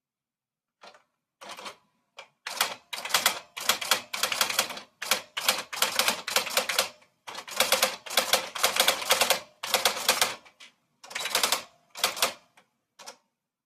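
Typewriter being typed on: rapid key strikes in runs of one to two seconds, broken by short pauses.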